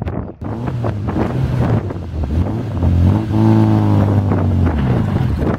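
Engine of a small open two-seater sports car working hard up a steep rocky trials climb, its note rising to a peak about three and a half seconds in as the car passes close, then easing. Wind buffets the microphone.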